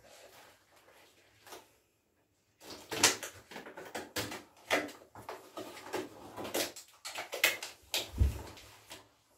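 Yellow household rubber gloves being pulled onto the hands: a run of rubbery rustles, stretches and snaps starting about two and a half seconds in, with a low thump near the end.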